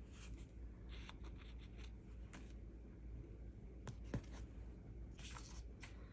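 Faint rustling and light clicks of a sticker being picked off its sheet and pressed onto planner paper, with one sharper click about four seconds in.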